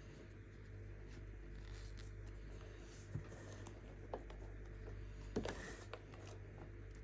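Baking soda being crushed, with soft crumbly crackling and a few sharper crunches about three, four and five and a half seconds in, the one near the end the loudest, over a faint steady low hum.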